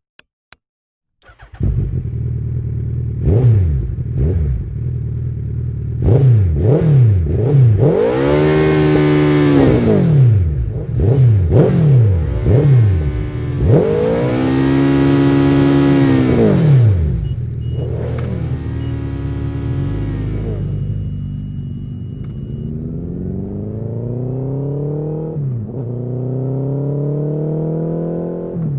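Suzuki Hayabusa's inline-four engine starting after a few clicks, idling, then revved with short throttle blips and two long, high revs that rise and fall. Near the end it pulls under steady acceleration, the pitch climbing slowly, with one drop at a gear change.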